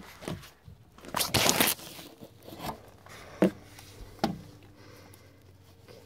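Scraping, rustling and crunching as someone shifts and handles things in a cramped crawl space, with a loud tearing rasp about a second in and a few short knocks after it.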